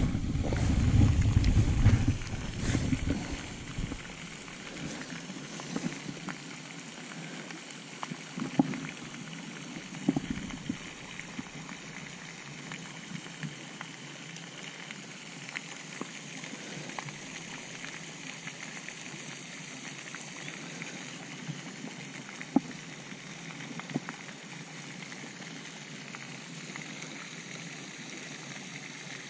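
Faint steady water ambience from a kayak on a pond, an even hiss with a few light knocks scattered through it. A low rumbling buffet on the microphone in the first two seconds.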